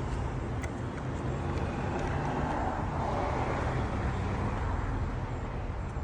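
Steady rumble of road traffic that swells a little around the middle, with a few faint clicks.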